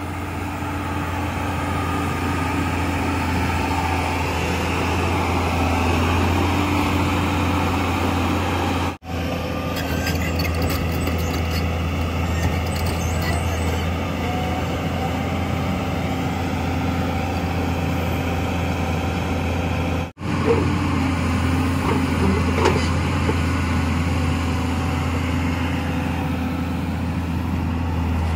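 JCB JS215 tracked excavator's diesel engine running steadily with a deep hum, with a few sharp metal clanks in the last third.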